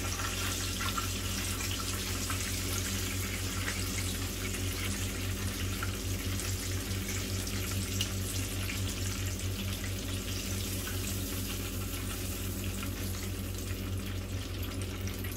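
Battered chicken fillets deep-frying in a pan of hot oil: a steady sizzle with fine crackling, over a constant low hum.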